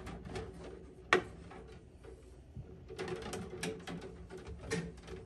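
Boat wiring and zip ties being handled and pulled about, rustling with small clicks, and one sharp snap about a second in.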